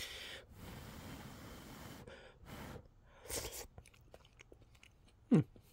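A person eating a spoonful of chickpea tikka masala with rice, with faint chewing and mouth sounds. A long breathy exhale comes at the start, two short breaths follow a little later, and a brief voiced sound comes near the end.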